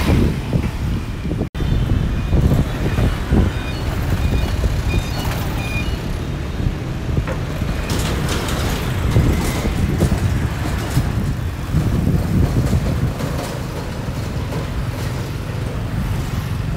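Road traffic: a steady low rumble of vehicle engines, with a string of short high beeps in the first few seconds. The sound cuts out for an instant about a second and a half in.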